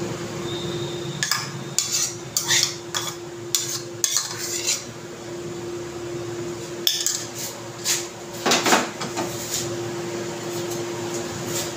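Metal spoon clinking and tapping against a glass in two runs of quick clinks, the first starting about a second in and the second a little past halfway, over a steady low hum.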